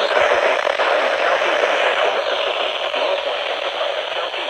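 Steady radio static: an even hiss from a radio receiver with no voice on the channel.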